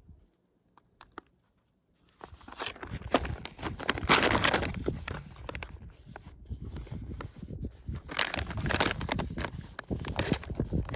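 Near silence, then from about two seconds in a foil freeze-dried meal pouch crinkling as it is handled and turned over.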